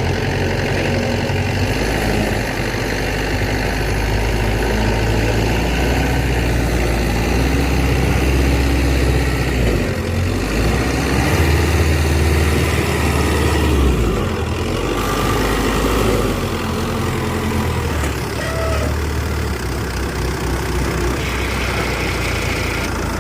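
Kubota DC-93 combine harvester's diesel engine running steadily at working speed. Its low drone shifts in pitch about halfway through and again a little later.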